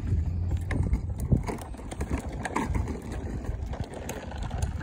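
Hard plastic wheels of a toddler's ride-on trike rolling over a concrete footpath: a low rumble with scattered clicks and rattles.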